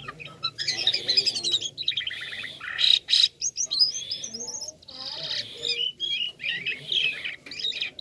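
White-shouldered starling (jalak kapas) singing a rapid, varied, toy-like song of squeaky chirps, whistled glides and trills, almost without pause.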